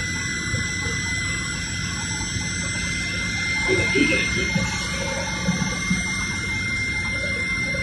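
Steady cabin noise of a Fokker 100 airliner in flight, heard from a window seat: a continuous rush of air and engine with a thin, constant high whine over a low hum.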